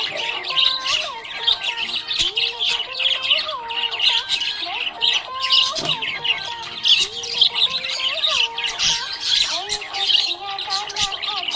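Budgerigars chirping and chattering continuously in quick, high-pitched bursts of squawks and tweets.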